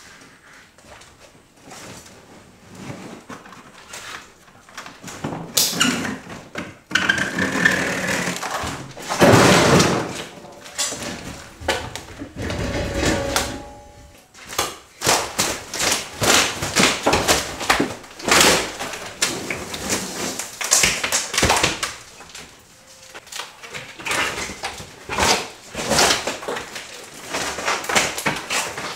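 Demolition noise from gutting a kitchen: irregular knocks, thuds and scraping as wooden panels are handled on a hand truck and wall paneling is pulled loose. A louder stretch of rumbling and scraping comes about a quarter of the way in and lasts several seconds.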